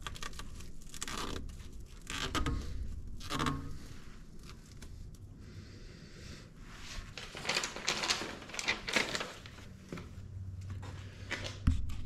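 Hands working a wiring-harness connector and its wires inside a machine's valve compartment: irregular rustling, scraping and crinkling handling noises, busiest in the second half, with a knock just before the end.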